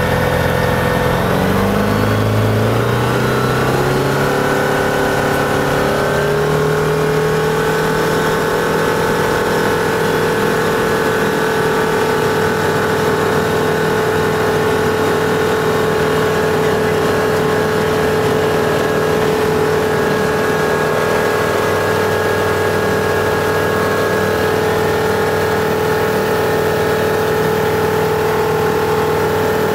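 Flight Design CTLS's Rotax 912 four-cylinder engine and propeller heard from inside the cockpit on takeoff: the pitch climbs over the first six seconds or so as power comes up, then holds steady through the takeoff roll and climb-out.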